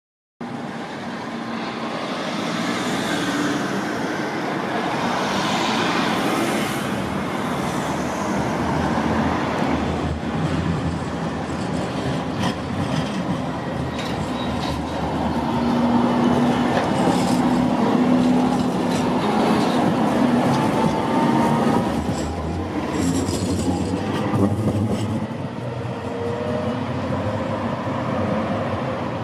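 Electric street tram running on its rails, wheel-on-rail noise loudest around the middle as it comes close, with a motor whine that rises in pitch in the second half.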